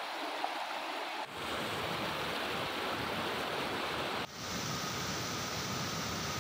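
Muddy flash-flood water rushing and churning, a steady noise of fast-flowing water. It abruptly becomes fuller and deeper about a second in, and dips briefly before resuming about four seconds in.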